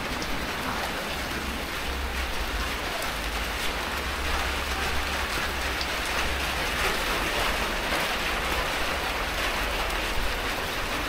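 Heavy rain falling steadily: a dense, even hiss of drops, with a low rumble underneath.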